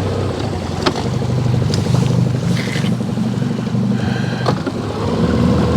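Boat motor running steadily, with two sharp knocks, one about a second in and another past the middle.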